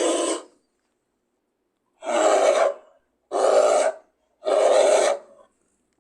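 Series of short, harsh animal roars presented as reconstructed creodont calls: one ending about half a second in, then three more in quick succession, each under a second long, with dead silence between them.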